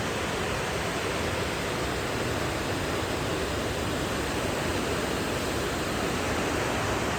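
Floodwater of a swollen river rushing past, a steady, even noise of flowing water.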